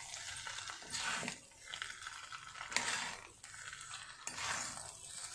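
Spatula stirring and tossing noodles and vegetables in a steel kadai: irregular scraping and clinking against the pan, with a few sharper strokes.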